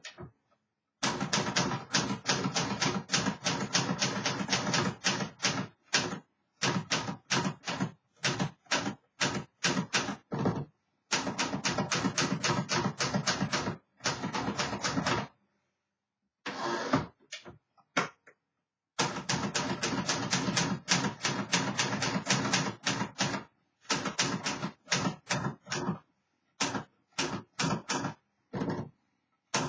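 1953 Remington Quiet-Riter portable manual typewriter being typed on: rapid runs of key strikes in bursts of a few seconds, with short pauses between.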